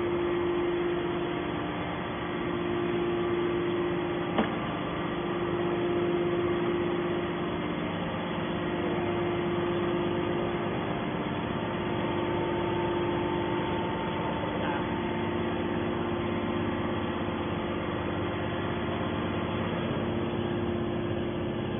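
Hydraulic scrap metal baler's power unit running steadily with no press stroke under way: a constant machine hum with one prominent steady tone. A single sharp click about four seconds in.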